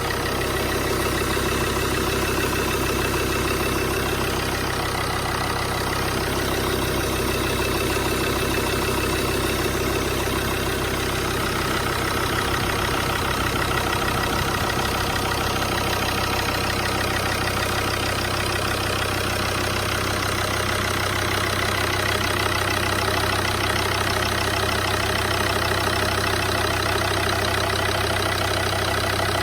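Volvo XC90 2.4 (185 hp) five-cylinder D5 turbodiesel idling steadily. The owner hears it running harshly, with a metallic knock.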